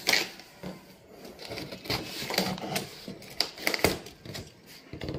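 A large cardboard TV box being handled and opened by hand: irregular clicks, knocks and scraping cardboard rustles as the seal is broken and a flap is folded back, with a sharper knock right at the start.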